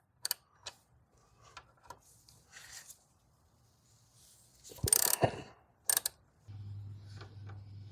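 Ratchet strap being cranked tight on a motorcycle's forks: scattered metallic ratcheting clicks, with a louder clatter about five seconds in. A low steady hum sets in near the end.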